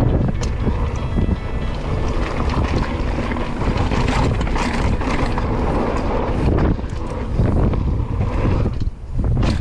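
Wind rushing over the camera microphone as a mountain bike rides a trail at speed, with rattles and knocks from the bike going over rough ground. Level dips briefly near the end.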